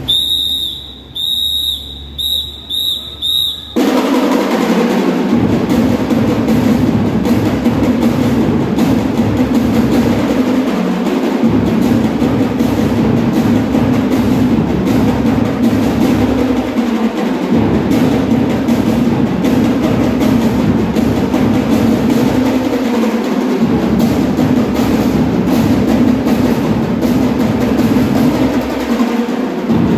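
A run of short, warbling whistle blasts, then about four seconds in a drum and lyre band strikes up, dense snare drumming over bass drums, and plays on steadily.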